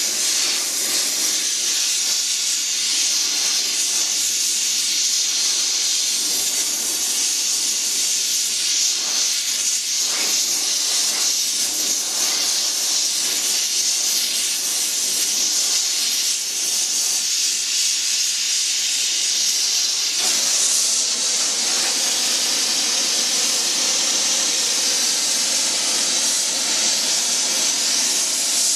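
Gas torch flame hissing steadily while heating a bent casting so it can be bent straight, growing a little stronger about two-thirds of the way through.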